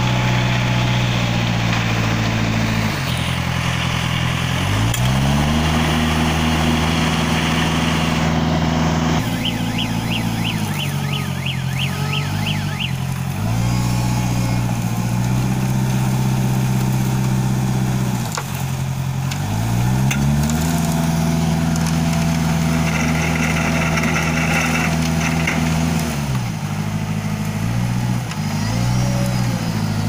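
Diesel engine of a Schwing Stetter SLM 2200 self-loading concrete mixer revving up and dropping back several times as the machine works its loading shovel. A fast repeating high warble sounds for a few seconds midway, and briefly again at the end.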